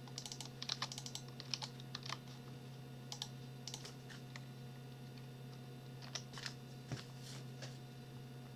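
Typing on a computer keyboard: a quick flurry of keystrokes at the start, then scattered clusters of key clicks, over a faint steady electrical hum.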